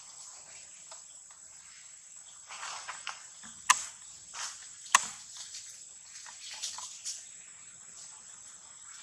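Dry leaf litter rustling and crunching as macaques scamper through it, with two sharp cracks, the loudest sounds, about 3.5 and 5 seconds in. A steady high insect drone runs underneath.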